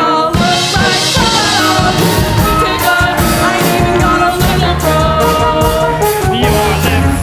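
Music with singing over a drum-kit beat.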